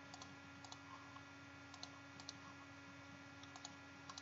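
Faint computer mouse clicks, single and in quick pairs, scattered over a steady low hum.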